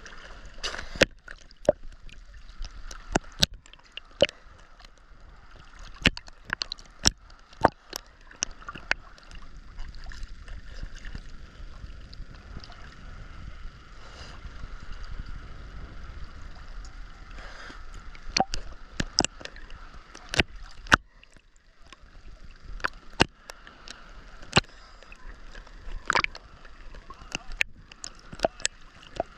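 Seawater sloshing and gurgling around a swimmer, broken by frequent sharp, irregular splashes.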